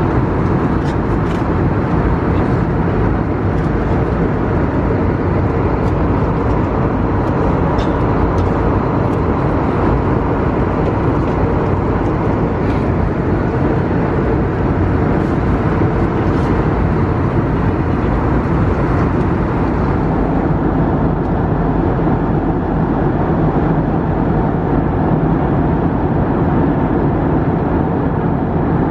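Steady cabin noise of an Airbus A320neo in flight: an even, deep rush of airflow and engine noise, with a few faint clicks in the first half.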